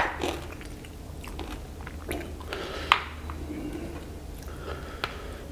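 Close-miked chewing of instant noodles, with a few sharp clicks, the loudest about three seconds in.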